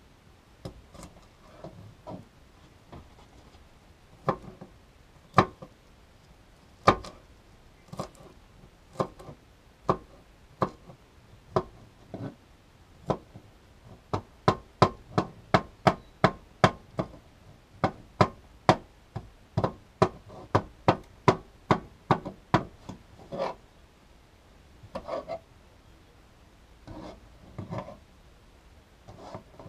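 Knife chopping food on a cutting board: spaced single strokes at first, then about halfway in a quick, even run of about three or four strokes a second, easing back to a few softer strokes near the end.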